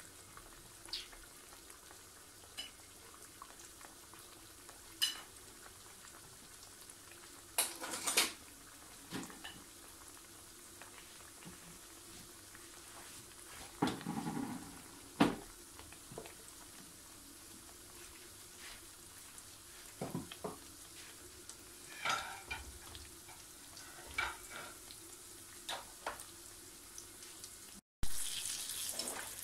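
Pastries frying in hot oil in a steel frying pan: a faint, steady sizzle with scattered clicks and knocks, the sizzle louder near the end.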